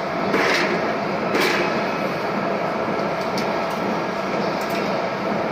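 Chain link fence machine running with a steady mechanical noise, with two louder sharp clanks about half a second and a second and a half in and a few light ticks later.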